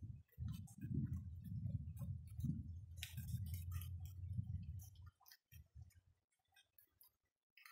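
Rain dripping: irregular drops tick and patter on nearby surfaces, with a low rumble underneath that stops about five seconds in.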